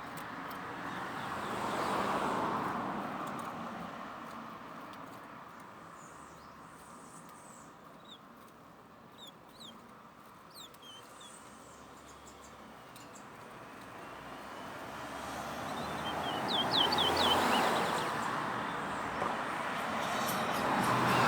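A towa-towa songbird gives short, high chirps: a few scattered ones near the middle, then a quick run of them about three-quarters of the way through. Under them, a rushing background noise swells early on, fades, then builds again toward the end.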